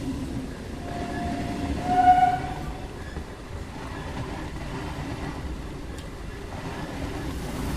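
Three-phase MEMU electric train running with a steady rumble, its horn sounding a short blast about a second in, loudest near its end.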